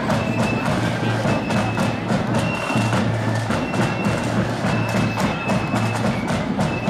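Marching flute band playing a tune on the march: flutes on held high notes that change every second or so, over a steady rattle of snare drums and a bass drum beat.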